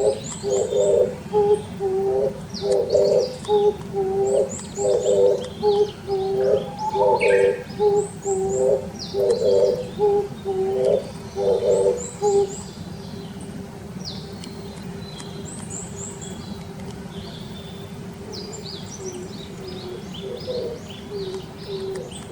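Oriental turtle dove cooing its low, repeated song phrases for about the first twelve seconds, then stopping. Small birds give short high chirps throughout, and a faint steady low tone remains after the cooing ends.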